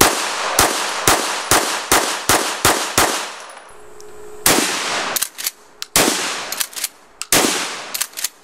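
Semi-automatic pistol fired rapidly, about eight shots in three seconds. After a short pause comes a pump-action shotgun's heavier shots, each with a long echoing tail, with shorter sharp clacks between them.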